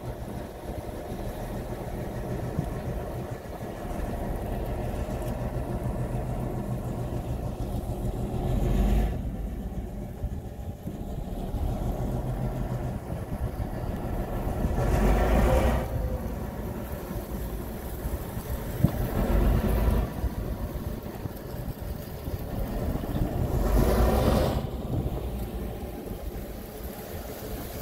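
Tugboat's diesel engine running steadily with a low hum. Four louder rushes of noise swell up and die away about 9, 15, 20 and 24 seconds in.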